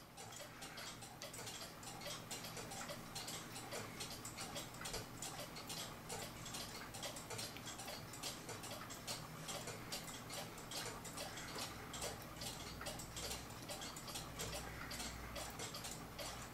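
A mechanical clock ticking steadily, with an even run of light ticks over a faint steady low hum.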